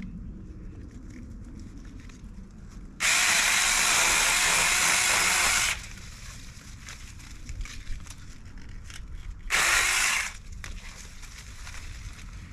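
Battery-powered Saker mini electric chainsaw running in two bursts while trimming small shrub branches: one of about three seconds starting three seconds in, then a brief one near ten seconds, with a steady even motor-and-chain sound that starts and stops abruptly.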